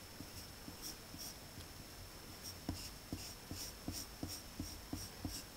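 Pencil sketching on paper: a run of short, light strokes, each a brief scratch of graphite across the sheet.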